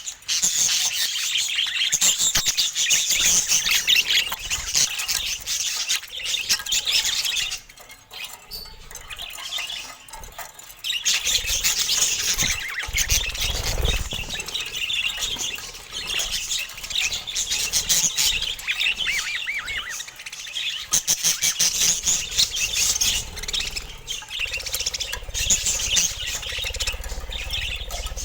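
Several budgerigars chattering and chirping together in a dense, continuous warble, with a brief quieter lull about a third of the way in.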